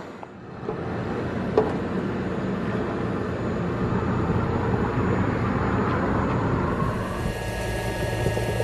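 Water running from a roadside water tank's brass tap through a garden hose, with a sharp click about one and a half seconds in. From about seven seconds a steady hum takes over.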